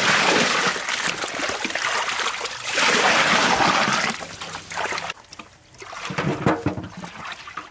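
Water splashing and trickling, loudest in two spells, dropping away about five seconds in, followed by a few light knocks near the end.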